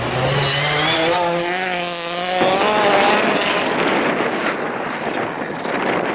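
Rally car engines at speed on a snow stage. For the first two and a half seconds a revving engine note wavers up and down, then cuts off abruptly into a dense, noisy engine-and-tyre roar as a car approaches.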